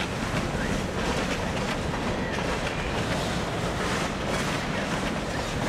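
Freight cars of a long train rolling past close by: steady rumble and clatter of steel wheels on the rails.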